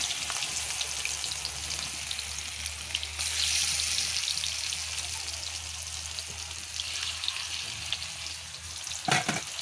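Slices of steamed colocasia-leaf roll (rikwach) deep-frying in hot oil in a kadhai: a steady crackling sizzle that swells about three seconds in. A short, sharp louder sound comes near the end.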